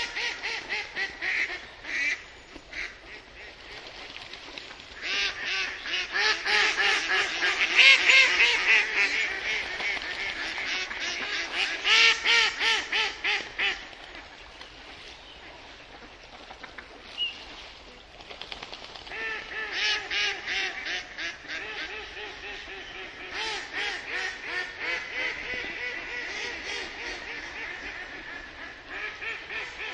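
Duck quacking in fast runs of short calls, about four or five a second. A loud run fills the middle of the stretch, it goes quieter for a few seconds, then the quacking picks up again.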